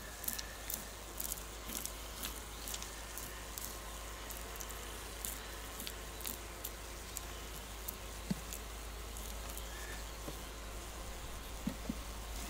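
Honeycomb cappings on a frame of old, crystallised honey being scratched open with a tool, a run of light, irregular scratchy clicks. The comb is opened so the bees will take up and rework the honey.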